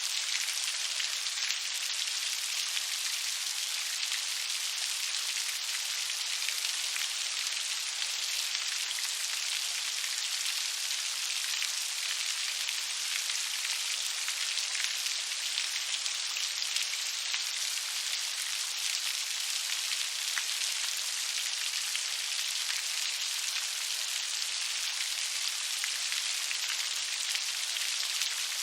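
Steady rain, a dense, even patter of many fine drops without let-up.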